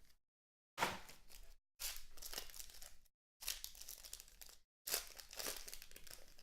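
Plastic wrapping being torn and crinkled as a sealed box of trading cards is opened, in several short crackly bursts.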